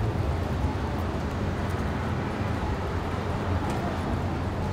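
Steady city street noise, mostly a low rumble of traffic.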